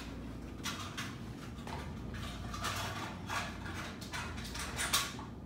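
Footsteps on a hard floor, short knocks about twice a second, over a steady low hum.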